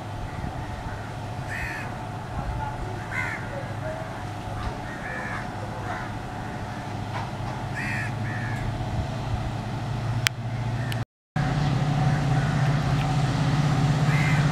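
Crows cawing repeatedly over the low, steady running of an approaching EMD WDP-4D diesel locomotive's two-stroke engine, which grows louder as the train nears. The sound cuts out briefly near the end and comes back with the engine noticeably louder.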